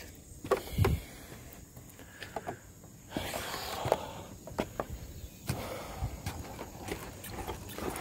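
Footsteps on the wooden steps and plank deck of a swinging bridge: irregular knocks and thumps, the loudest about half a second to a second in.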